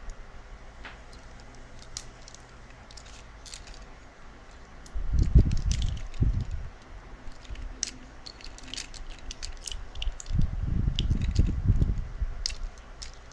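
Small clicks and rustles of toy robot parts being handled and fitted together, with low handling bumps about five seconds in and again around ten to twelve seconds in.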